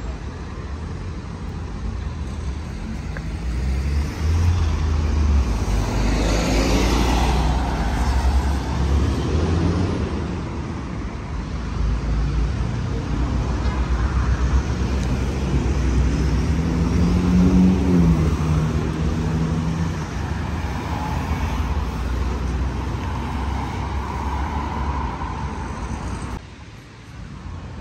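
Road traffic on a busy city street: cars driving past with a steady low rumble, swelling as individual vehicles pass, loudest about six to eight seconds in and again around seventeen seconds; the sound drops off suddenly near the end.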